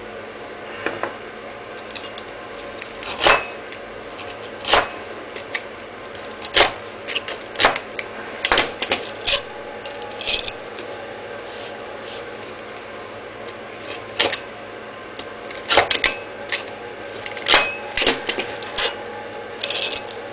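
Metal blades working at the worn abrasive flaps of a flap disc: irregular sharp scrapes and metallic clicks, about fifteen in all, some ringing briefly, over a steady faint hum.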